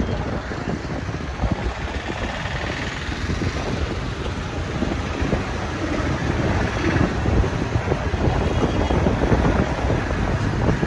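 Wind buffeting the microphone while riding in a moving vehicle, with the vehicle's engine and road noise rumbling underneath.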